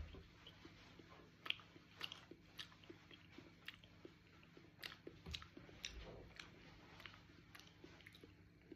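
Faint close-up chewing and biting of food taken from a spoon, with soft irregular mouth clicks every second or so.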